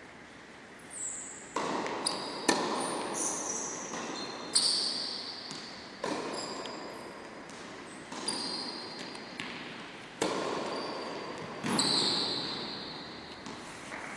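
Tennis rally: a run of sharp racket hits and ball bounces at an irregular pace, each echoing around a large sports hall, with short high squeaks among them.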